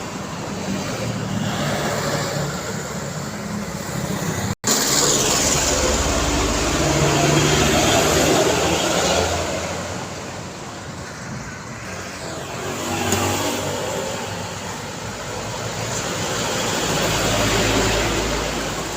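Road traffic heard from the roadside: vehicles pass one after another, engine tones and tyre noise swelling and fading as each goes by, loudest about five to nine seconds in and again near the end. A brief silent gap about four and a half seconds in, where the recording cuts.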